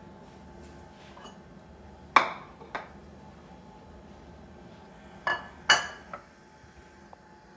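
A serving utensil clinking against dishes as food is dished up: a few short, ringing clinks, two about two seconds in and three more around five to six seconds in.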